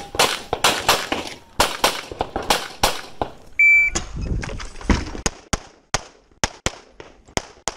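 Sharp gunshot cracks, then a shot timer's short start beep about three and a half seconds in, followed by a fast string of pistol shots, roughly three a second, from a Walther Q5 Match Steel Frame pistol with a red-dot sight.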